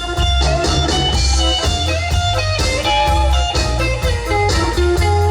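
Live country band playing an instrumental break: an electric guitar lead with bending notes over bass and drums.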